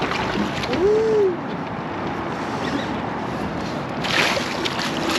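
A landing net splashing into the water about four seconds in as a hooked Chinook salmon is netted beside the boat, over a steady rush of wind and water. About a second in, a person gives one short rising-and-falling hoot.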